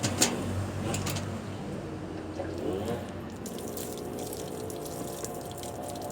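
Water pouring and splashing, with a few sharp knocks in the first second; the hot water softens the plastic of a dented bumper so it can be pushed back out.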